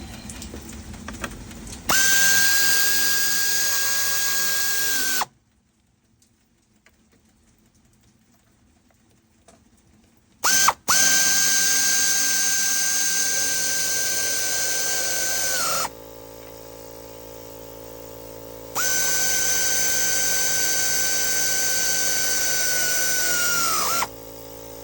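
Power tool running in three long runs of a steady whine. Each dips in pitch as it winds down at the end. Between the first two runs there is a few seconds of near silence, ended by a brief burst.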